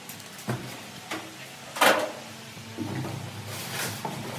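Cardboard boxes and packaging being handled: a few short knocks and scrapes, the loudest about two seconds in.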